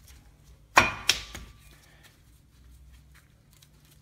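Two sharp metal clinks about a third of a second apart, the first with a brief ring, from a brake caliper and its guide-pin bolts being fitted by hand. Faint small ticks of handling follow.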